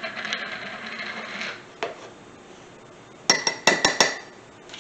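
Measuring spoon scraping through baking powder, then tapping against the rim of a dish: a cluster of quick, ringing metal clinks a little over three seconds in.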